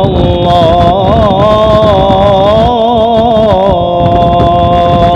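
A male voice singing an unaccompanied Islamic ibtihal, drawing out one long melismatic note whose pitch wavers and turns before settling and holding. A steady low rumble runs underneath.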